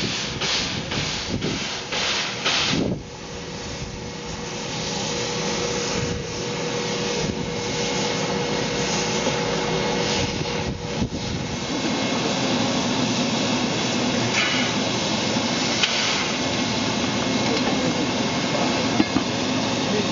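Steam locomotive 3642, a NSW 36 class 4-6-0, hissing steam steadily while it is turned on a turntable. A quick run of regular pulses stops about three seconds in, and a faint steady tone sits under the hiss until about eleven seconds in.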